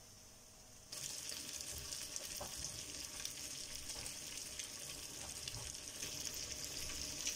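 Ground pork sisig frying and sizzling on hot metal, starting abruptly about a second in and running as a steady hiss with light crackles.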